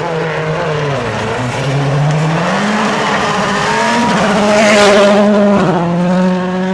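Volkswagen Polo R WRC rally car's turbocharged 1.6-litre four-cylinder engine at full effort, its pitch dipping and climbing as it changes gear. It is loudest about five seconds in, with a burst of tyre and road noise as the car passes close, then holds a steady pitch.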